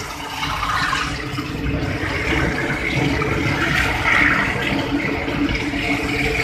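Steady rushing noise of a moving train, heard at its open doorway as it rolls along.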